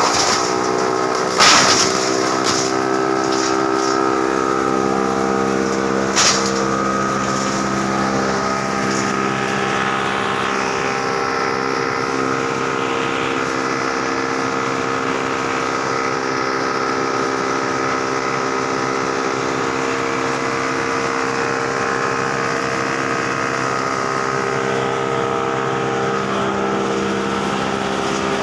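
Heavy-duty wood chipper running steadily, its drive giving an even mechanical note, with a sharp knock about a second and a half in and another about six seconds in.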